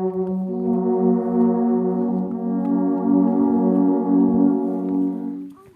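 Alphorns holding long, steady notes in harmony. A low note sustains throughout, and a second horn comes in about half a second in and moves up a step around two seconds in. Both stop near the end.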